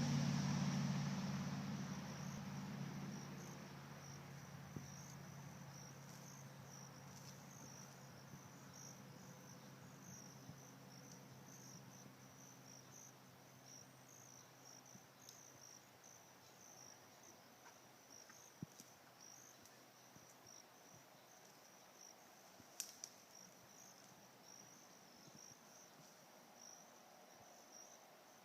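Crickets chirping steadily in a high, pulsing drone. A low rumble fades away over the first few seconds, and a few faint clicks sound now and then.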